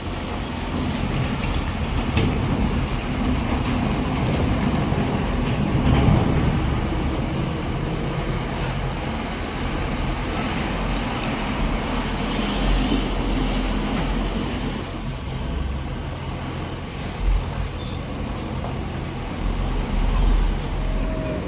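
Heavy diesel engines of a JCB backhoe loader and tractors running steadily under work.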